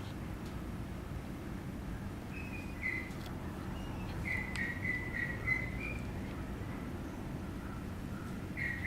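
Papillon puppy whimpering: short runs of faint, high, thin whines, three times, over a steady low background rumble.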